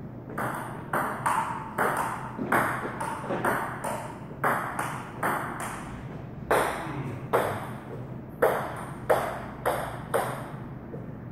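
Table tennis rally: a ping pong ball clicking off the paddles and bouncing on the table, about two hits a second, until the rally ends about ten seconds in.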